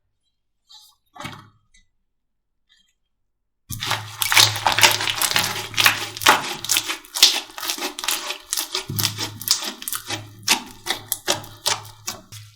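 Slime being squeezed and poked by hand: after a few near-quiet seconds, a dense, irregular run of sticky clicks, pops and crackles starts suddenly.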